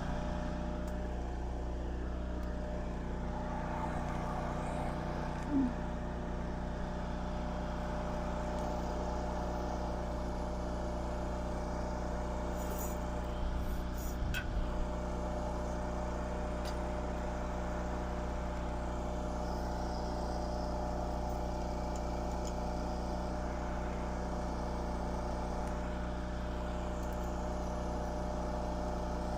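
An engine running steadily at a constant idle, with a short louder blip a little after five seconds in and a few light clicks about fourteen seconds in.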